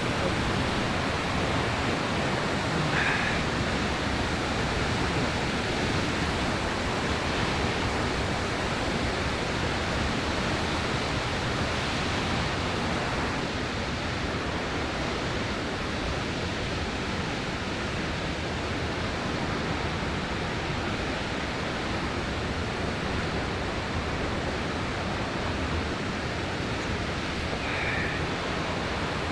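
A powerful waterfall's steady roar of falling water: a constant, even rush that fills the whole range from deep to high.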